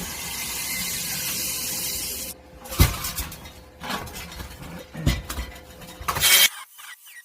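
Steelwork on a homemade gas-cylinder stove: a harsh grinding hiss for about two seconds, then three sharp metal clanks and a second short stretch of grinding that cuts off abruptly near the end.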